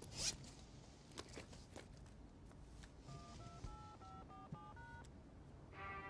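A mobile phone's keypad dial tones: a quick run of about eight short two-note beeps as a number is keyed in, after some faint rustling and clicks. Just before the end a ringtone melody starts up.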